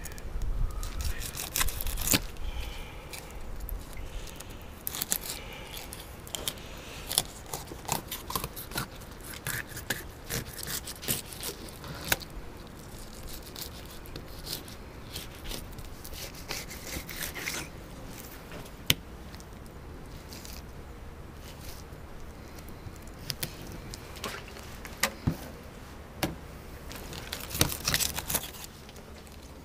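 Fillet knife slicing through panfish skin and scales and scraping on a plastic cutting board: irregular rasping scrapes and sharp ticks, in spells with pauses between.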